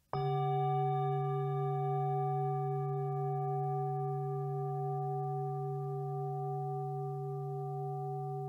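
One struck, bell-like metal tone, sounding once just after the start and then ringing on, slowly fading, with a low hum under several higher overtones.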